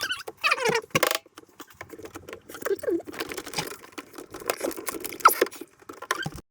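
Plastic refrigerator panels and parts being handled and pulled out: a string of irregular clicks, taps and rattles with a few brief plastic squeaks.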